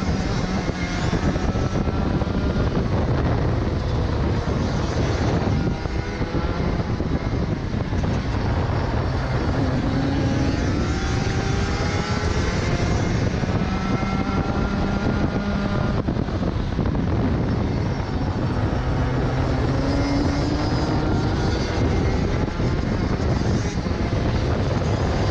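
Racing kart engine at full race pace, its pitch climbing steadily on each straight and dropping back as it brakes for the corners, several times over. Under it runs a steady rush of wind and road noise.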